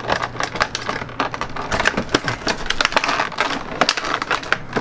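Oral-B toothbrush's cardboard and plastic packaging being handled, crackling and rustling in a dense run of small irregular clicks.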